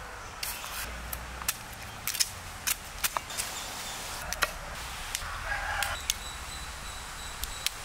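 Cauliflower florets being snapped and broken apart by hand, a scattered series of short, crisp snaps, with a brief animal-like call about five and a half seconds in.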